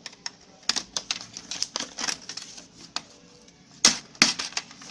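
Irregular plastic clicks and knocks of a Lenovo G580 laptop's casing and parts being handled and pried during disassembly, with a few louder sharp snaps near the end.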